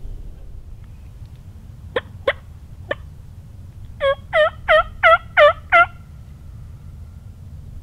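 A hunter's turkey call imitating a hen: three short sharp notes, then a quick series of six loud yelps.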